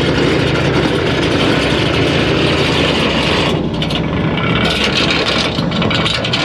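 Steady mechanical drone of the boat's engine running with the electric drum anchor winch paying out chain over the bow roller.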